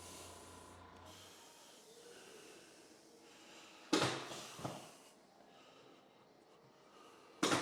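A sharp, forceful breath pushed out through the nose about four seconds in, trailing off over a second, and another near the end, as the chiropractor works down the back.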